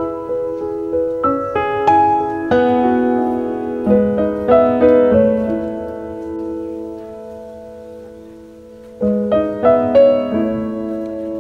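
Background piano music: single notes and chords that fade after each strike. It rests on a held chord for a few seconds and starts a new phrase about nine seconds in.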